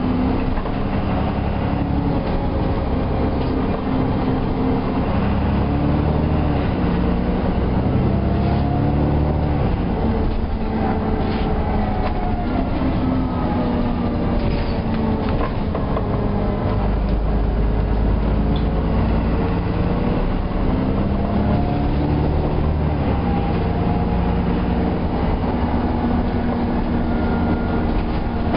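Alexander Dennis Enviro400 double-decker bus running. The diesel engine note rises and falls several times as the bus accelerates, changes gear and eases off.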